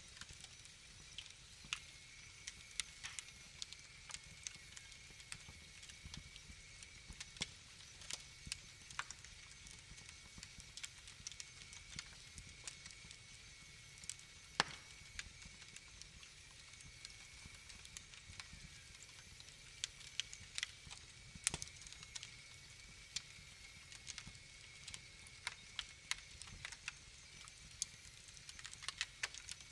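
Wood fire crackling in a fireplace: a steady run of irregular small snaps and occasional sharper pops over a low, even rumble.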